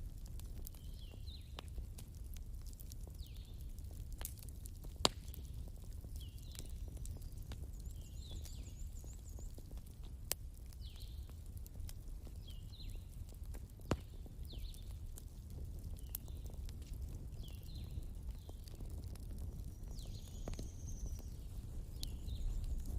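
Wood fire burning with a steady low rumble and occasional single sharp crackling pops, the strongest about five and fourteen seconds in. Short high chirps recur every second or two behind it.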